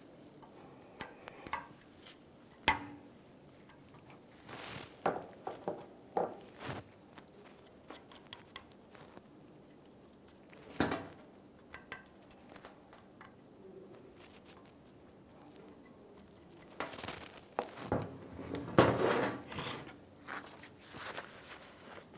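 Thin steel anti-rattle clips being pressed and snapped onto a cast-iron brake caliper bracket from a Chevy Silverado 1500, with scattered metallic clicks and clinks. A busier run of clatter comes near the end as the bracket is handled on the concrete floor.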